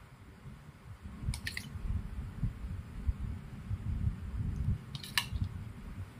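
A metal spoon clinks twice as it scoops and drops baked beans in sauce onto the trays, once about a second and a half in and once about five seconds in. A low rumbling handling noise runs underneath.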